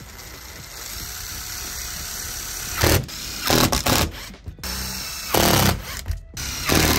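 Makita cordless drill driving screws through the plastic hookup inlet housing into the van's side panel: it runs softly at first, then in several short, loud bursts from about three seconds in as the screws bite.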